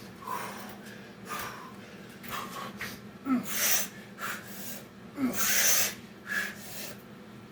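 A person breathing hard from the exertion of Navy SEAL burpees: repeated forceful exhales and gasps, the strongest puffs about three and a half and five and a half seconds in.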